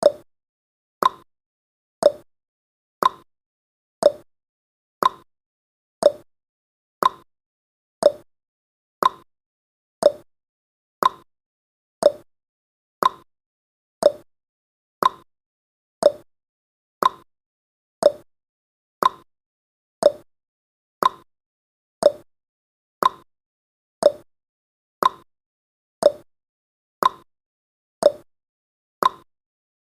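Clock-ticking sound effect of a countdown timer: one short, sharp tick each second, evenly spaced, alternating slightly higher and lower in pitch like a tick-tock.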